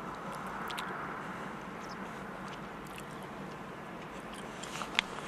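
Steady hum of distant machinery on a harbour work barge, with a few small clicks and knocks and one sharp knock about five seconds in.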